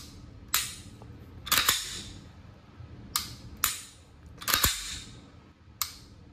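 Glock 40 10mm pistol dry-fired over and over: a sharp click as the trigger breaks, then the slide worked back and snapping forward to reset the trigger, about every two and a half seconds. The new trigger is stiff, with a lot of take-up, and not yet broken in.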